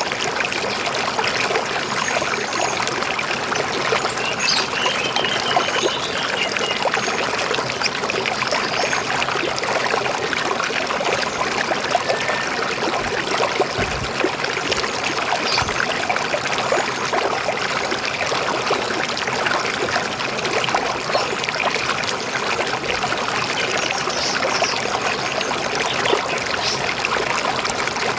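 Steady flowing river water, an even rushing babble, with a few faint bird chirps a few seconds in.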